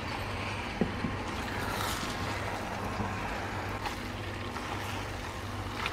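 Rigatoni being stirred with a wooden spoon through a frying pan of simmering creamy sauce: soft scraping and squelching with a faint tick of the spoon against the pan about a second in, over a steady low hum.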